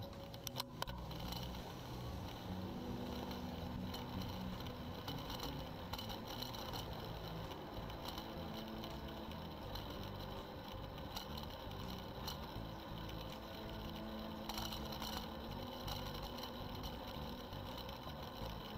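A mountain bike being ridden: steady rolling noise with a light mechanical chatter and occasional ticks.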